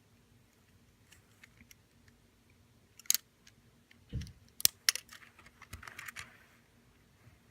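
Small plastic clicks, taps and a low knock from a MiniDV tape cassette being handled, with a sharp click about three seconds in and a quick run of clicks a second later.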